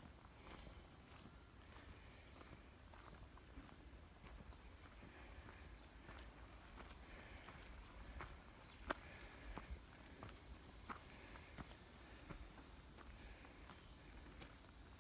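A steady, high-pitched chorus of insects, with faint, frequent footsteps of a person walking.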